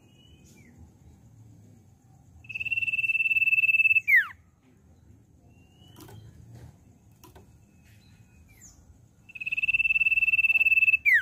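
Common iora singing: two long, steady high whistles of about a second and a half each, each ending in a quick falling note. A few short faint chirps and clicks come between them.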